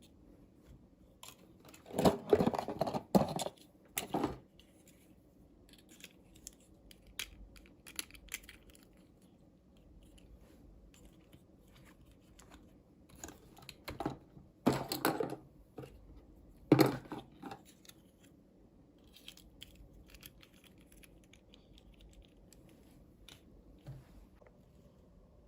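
Toy packaging being opened and handled: short bursts of rustling and tearing a few seconds in and twice more around the middle, with scattered small clicks and taps in between.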